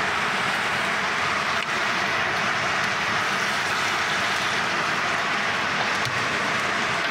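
Pork ribs in green chile sauce sizzling and bubbling in a steel pot, a steady frying hiss, with a couple of faint knocks from a wooden spoon stirring it.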